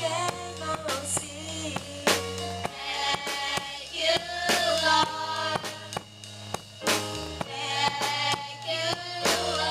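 Gospel choir singing with live drum kit and bass accompaniment, the drums keeping a steady beat under the sung melody.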